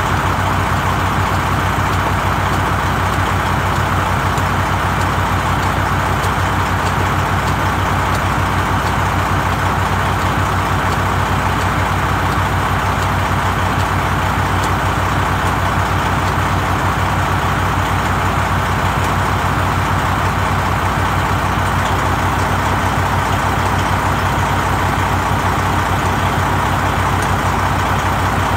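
Heavy diesel truck engine idling steadily, with an even low hum and a fast, regular pulse.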